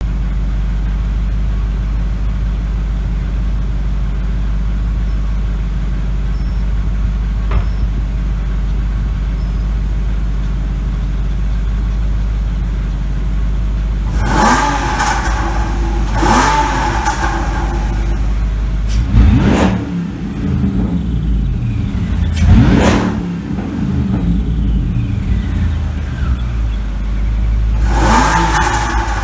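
A supercharged Jeep Grand Cherokee SRT8 V8 and a Porsche Cayman S idling side by side, a steady engine hum for about the first half. Then come a series of throttle blips: two quick revs around halfway, two louder, deeper revs a few seconds later, and another rev near the end.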